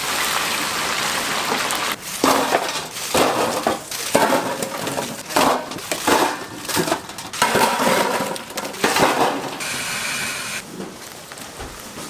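Food-stall cooking utensils at work: steady noise for about two seconds, then a run of clattering, scraping strokes roughly once or twice a second.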